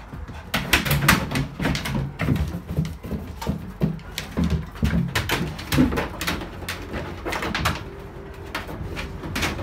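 Empty plastic jerry cans knocking and clattering in quick, irregular bumps as a springer spaniel scrambles over and between them while searching.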